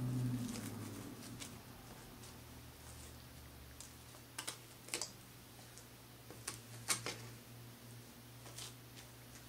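Scattered soft clicks and crackles as a baby handles and gums a slice of toast, heaviest about halfway through. Beneath them runs a faint steady low hum, and a low tone fades out in the first second.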